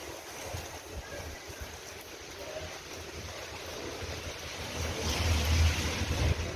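Outdoor ambience on a wet, windy day: a steady hiss with wind buffeting the microphone in low rumbles, strongest in a gust about five seconds in.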